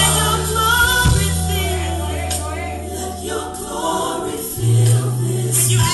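Gospel song with a choir singing over long, held bass notes.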